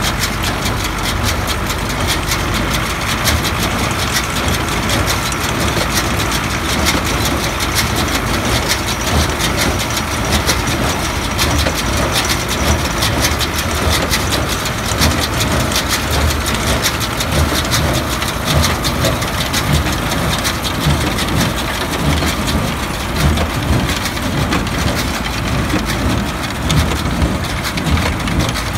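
A Kirgizstan small square hay baler running while it picks up and compresses hay, with a dense, rapid clatter over the engine of the tractor towing it.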